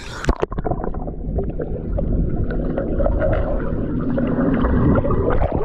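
Muffled underwater sound from a camera submerged in a swimming pool. There is a splash as it goes under about a third of a second in, then a low gurgling rumble with small bubble clicks, until it comes back up near the end.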